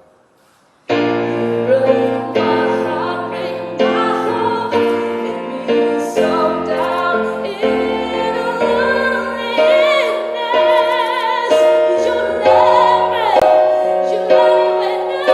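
A woman singing a ballad to piano accompaniment. Piano chords come in about a second in, and the voice holds notes with vibrato later on.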